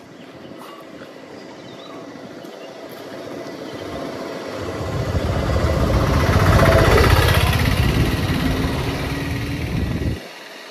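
A motor vehicle driving past close by. Its engine and road rumble build to a peak about seven seconds in, then the sound cuts off suddenly near the end.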